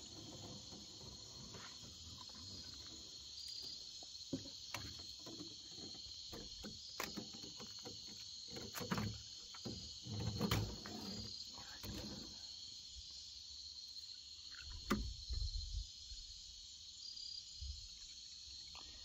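Crickets chirping in a steady, continuous high-pitched night chorus, with scattered knocks and rustles of handling over it.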